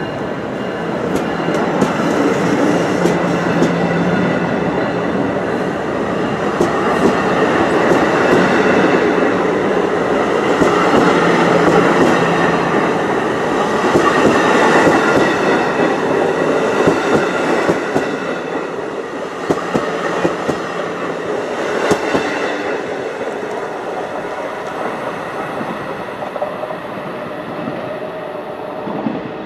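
NJ Transit Multilevel bilevel commuter coaches going past on the rails, gathering speed: a steady rumble with wheels clicking over the rail joints. It grows louder toward the middle and fades away over the last several seconds as the end of the train passes.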